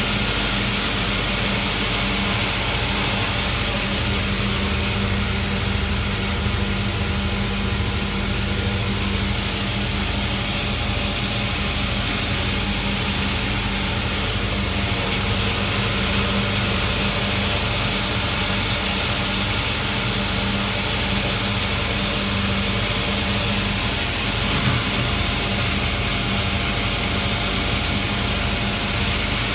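Metal material dryer running steadily, drying wet-separator metal granules: a constant motor hum with a low throb under a strong, even hiss, as the dried granules stream down its outlet chute.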